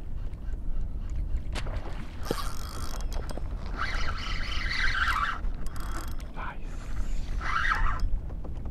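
Fishing reel being cranked in three short bursts with pauses between, as line is reeled in.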